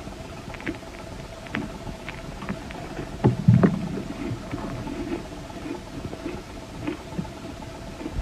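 Chunks of ice coated in matcha powder being bitten and chewed close to the microphone: scattered crisp crackles, with one heavier crunch about three and a half seconds in.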